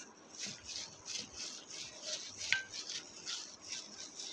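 Hands squishing and rubbing raw chicken pieces through a thick yogurt-and-spice marinade in a pot, making soft, irregular wet squelches a few times a second. A short click comes a little past halfway.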